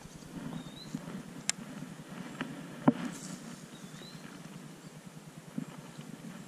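Abu Garcia baitcasting reel being cranked to bring in a lure: a fast, even gear rattle, with a few sharp clicks, the loudest about three seconds in.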